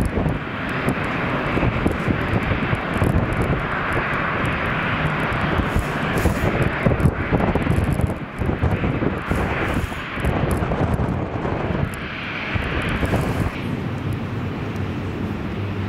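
Twin-engine jet airliner's engines running during a landing: a broad, rushing engine noise with a rough rumble underneath. Near the end it gives way to a steadier, lower hum from another jet on approach.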